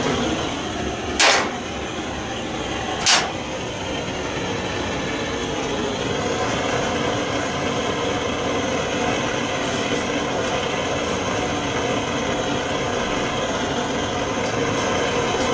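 Gas blowtorch flame hissing steadily as it heats tinning paste on welded steel roof seams, the tinning stage before lead loading. Two sharp clicks come about one and three seconds in.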